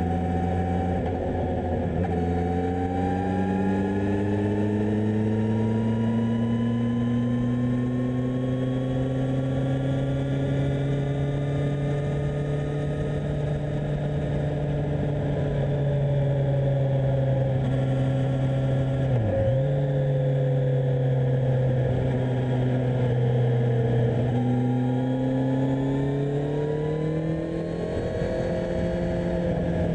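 2018 Kawasaki Z1000SX's inline-four engine under way. The note climbs slowly over the first half and holds, with a brief sharp dip about two-thirds through. It drops and climbs again near the end.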